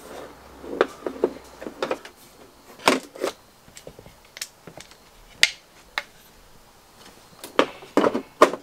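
Stand feet of a Samsung 50-inch TV being fitted into their slots on its back panel: a series of separate clicks and knocks, several coming close together near the end.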